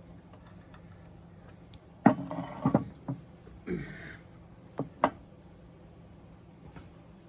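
Metal tools and parts clinking and clattering on a workbench, then a short scrape and two sharp clicks, over a steady low hum.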